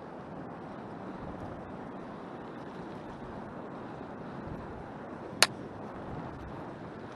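Steady rolling and wind noise from a bicycle riding a dirt trail, with one sharp click about five seconds in.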